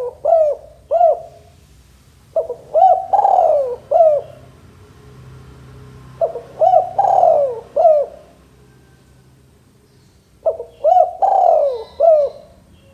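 Male spotted dove cooing. It repeats a phrase of several short coos around one longer, falling coo about every four seconds: the tail of one phrase as the sound begins, then three full phrases.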